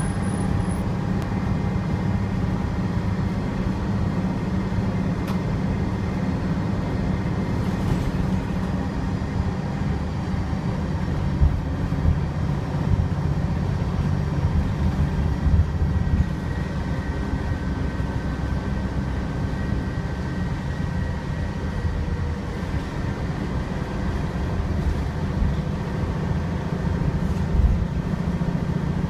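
Inside a 2014 Gillig Advantage transit bus, the engine and running gear give a steady low drone, with a faint high whine above it at times.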